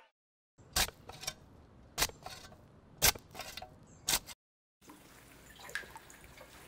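Water drips falling one at a time, four sharp drops about a second apart, each with a short ringing plop. Faint dripping follows in a steady hollow background.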